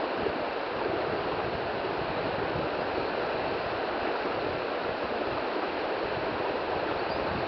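Shallow river rushing steadily over a stony bed, an even, unbroken water noise with no bird calls heard.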